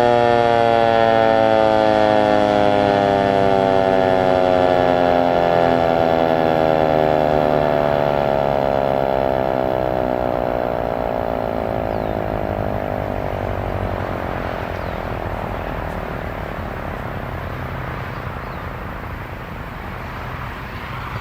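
American Signal T-121 outdoor warning siren winding down after its short alert: its tone falls slowly in pitch and fades over about twenty seconds, until mostly a low background rumble is left near the end.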